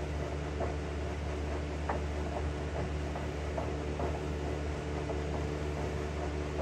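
A steady mechanical hum made of several fixed tones, with faint scattered clicks and taps of tools on metal as a nut is worked off a combine's axle truss rod.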